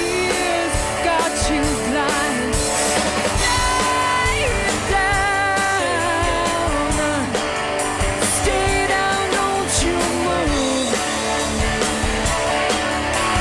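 Indie rock duo playing live: guitar with drums under a woman's singing voice.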